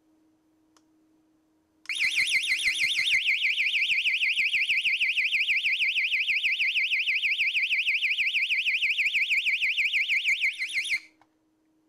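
A 102 dB piezo siren, set off by the alarm clock's buzzer signal, shrieks in a high, fast warble that sweeps up and down about six times a second. It starts about two seconds in and cuts off suddenly about a second before the end.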